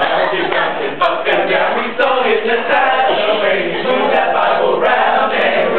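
A group of male voices singing and chanting a pop song together.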